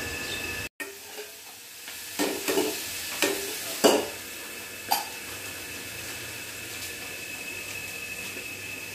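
A spatula stirring in a stainless-steel kadai on a gas stove: a few scrapes and clanks against the pan between about two and five seconds in, over a steady sizzling hiss.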